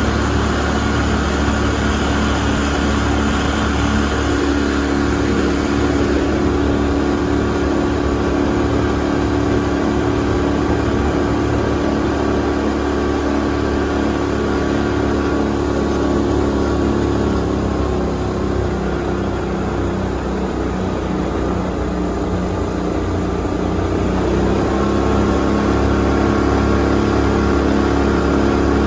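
Boat's outboard motor running steadily under way, with water and wind rushing past. It throttles back about two-thirds of the way through, then picks up again near the end.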